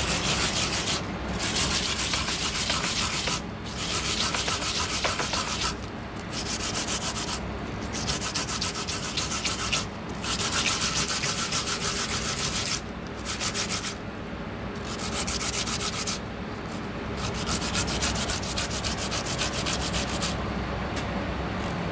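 A peeled white root rubbed quickly back and forth on a flat stainless-steel grater. It makes a wet rasping in spells of one to three seconds, with short pauses between them.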